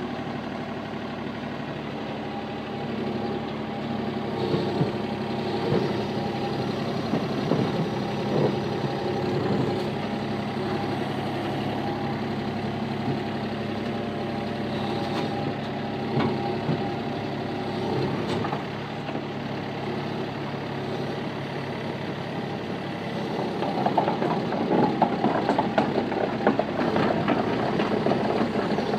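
An engine running steadily, with scattered clanks and knocks and a busier stretch of metal rattling near the end.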